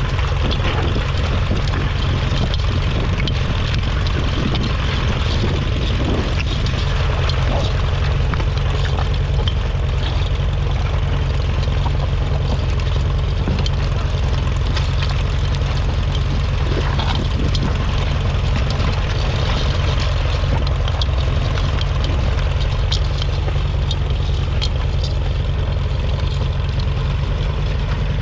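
A 1953 Ferguson TED20's 2.1-litre four-cylinder TVO engine running steadily, with an even, unbroken note.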